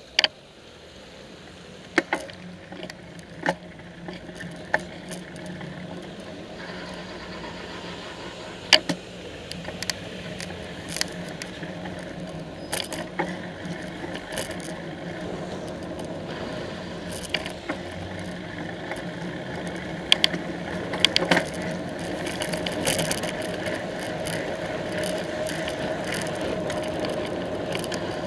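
Bicycle riding on a wet road through traffic, heard from a camera mounted on the bike. Road and wind noise build steadily as it gathers speed, with a low hum from the traffic around it. Scattered sharp clicks and knocks come from the bike and its mount over bumps, several in a cluster about twenty seconds in.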